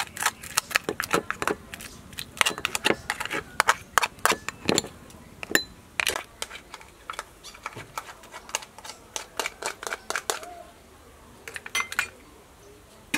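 Metal spoon scraping and clicking against a mud crab shell and a glass bowl as crab meat and roe are scooped out: rapid, irregular sharp clicks that thin out about ten seconds in.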